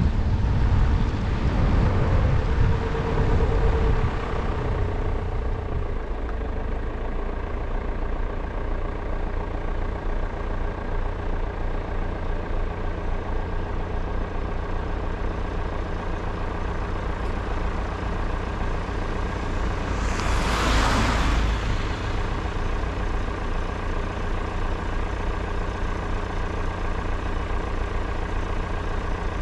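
Car's road and tyre noise fading over the first few seconds as it slows to a stop, then its engine idling steadily. About 20 seconds in, a brief rushing noise swells and fades over the idle.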